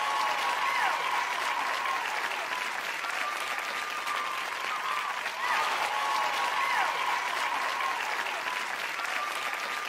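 Large crowd applauding and cheering, with high whistles held and gliding up and down over the clapping every few seconds.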